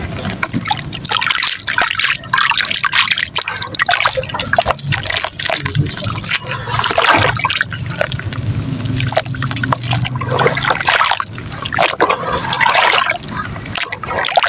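Chunks of soft dry mud crumbling and breaking apart in plenty of water: dense wet crackling with trickling and sloshing, going on without pause.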